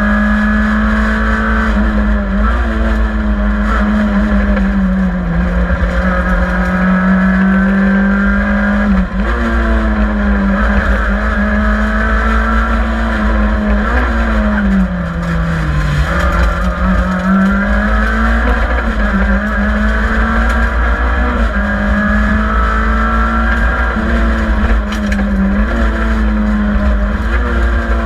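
Group N (N3-class) rally car at speed on a special stage, heard from inside the cabin. The engine runs hard at high revs, its pitch falling each time the car slows, most deeply about 16 seconds in, and climbing again as it accelerates, over constant road and transmission noise.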